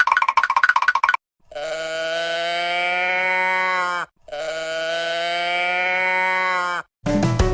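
Fast, bell-like alarm ringing that cuts off about a second in, followed by two identical long bleat-like calls of about two and a half seconds each, pitch rising slightly then falling. Music with a beat starts near the end.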